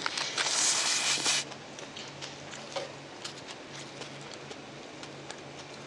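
A person slurping a strand of food into the mouth, a loud hissing slurp lasting about a second and a half, then quiet chewing with small scattered clicks.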